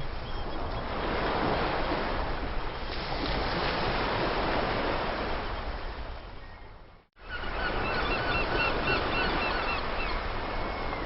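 Sea surf washing steadily, with seagulls calling. The wash fades down to a moment of silence about seven seconds in, then comes back with a quick series of gull cries.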